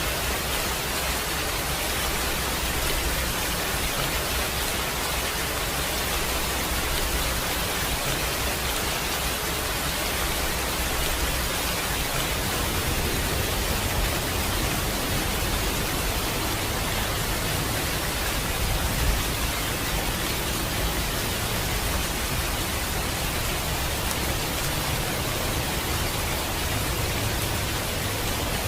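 Steady, heavy rainfall: a dense, even hiss without single drops standing out.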